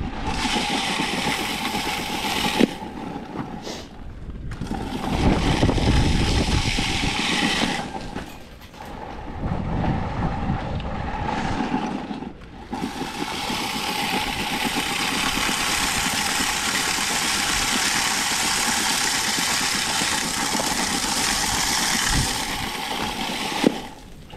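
Gusty wind buffeting the microphone over a steady machine hum from the salting equipment, with stretches of hiss that start and stop several times.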